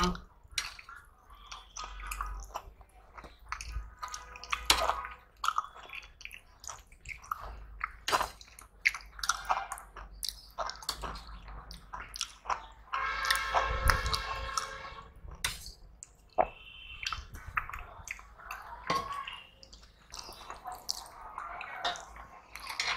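Close-miked eating: chewing and lip-smacking on mouthfuls of rice and curry, with wet squelching as rice is mixed by hand on steel plates. Many short sharp clicks run throughout.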